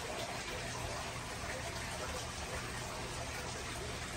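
Steady rush of running water in an aquarium, with a low hum beneath it.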